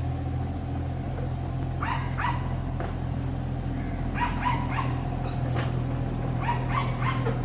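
A dog barks in short clusters of two or three barks, four times, over the steady low running of a Kubota mini excavator's diesel engine.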